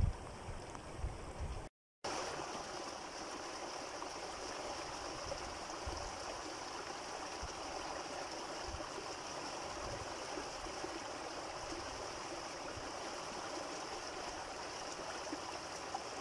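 Shallow muddy floodwater flowing steadily over sand and gravel and around a bush's roots: a continuous rushing, trickling wash. The sound drops out briefly about two seconds in.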